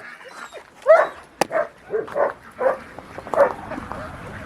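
A dog barking repeatedly, about six short barks starting about a second in, with a single sharp click among them.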